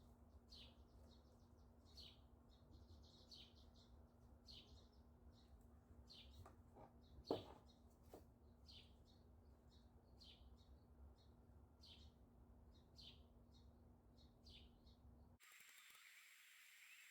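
A songbird chirping faintly and repeatedly, short high notes about two a second, over a faint steady hum. One louder sound stands out about seven seconds in, and the chirping stops near the end.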